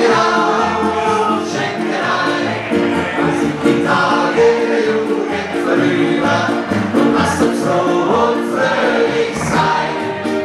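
Several women singing a Bavarian folk song together, with accordion accompaniment.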